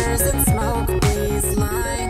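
Electronic music with a steady beat, a kick drum about twice a second under hi-hat-like hiss and sustained synth notes.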